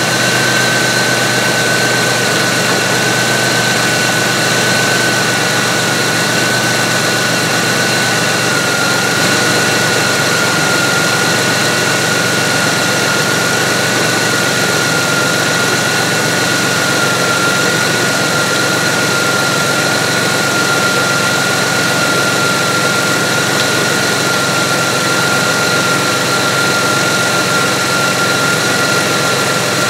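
Chevy Venture's electric radiator cooling fans running, over its 3.4 L V6 idling with the AC on: a steady rush of air with a constant high whine.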